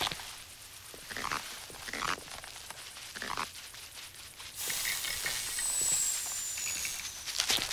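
Slug pellets pattering onto soil a few times. About four and a half seconds in, a steady hiss starts suddenly, with a thin high whistle sliding gently down.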